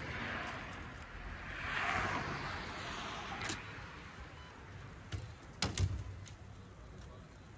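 Burning Chevrolet Sonic: the fully involved car fire rushing and hissing, swelling around two seconds in, then a few sharp pops and cracks in the second half, the loudest two close together past the middle.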